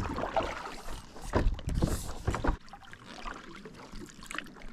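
Water sloshing and irregular knocks against a fishing kayak's hull, busier at first and quieter after about two and a half seconds.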